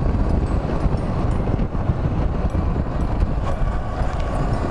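Wind rushing over the action camera's microphone while riding a Honda Cross Cub 110, with its small air-cooled single-cylinder four-stroke engine running steadily underneath. The noise is heaviest in the low end and stays even throughout.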